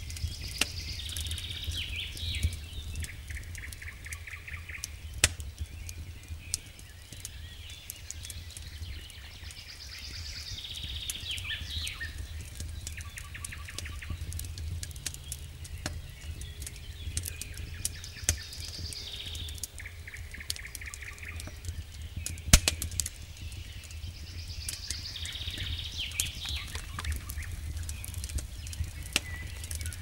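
Firewood crackling in a campfire, with scattered sharp pops over a low steady rumble; the loudest pop comes about two thirds of the way through. A songbird sings the same short phrase about every eight seconds, each ending in a fast trill.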